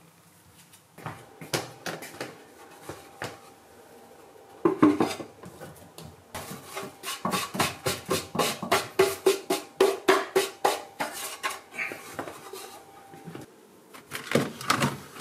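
A wooden slatted board is knocked out over a plastic waste bin: a loud thump, then a fast run of knocks at about four a second. Near the end there is a clatter as a Dyson stick vacuum is lifted from its wall dock.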